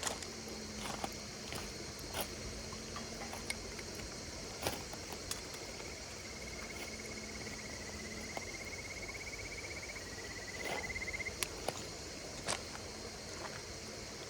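Campfire crackling with scattered sharp pops over a steady chorus of singing insects. About halfway through, one insect gives a fast pulsed trill lasting several seconds.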